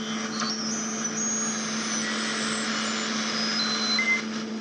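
Receiver audio from a homebuilt Semar 40 m SSB transceiver played through a loudspeaker while it is tuned up the band: a steady hiss of band noise over a low hum, with short whistling tones at different pitches as the tuning passes signals.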